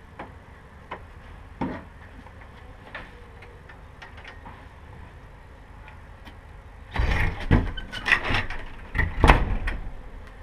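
Wooden door with a lever handle being worked: a few light clicks of the handle and latch, then, about seven seconds in, a loud run of knocks and thumps as the door is shut.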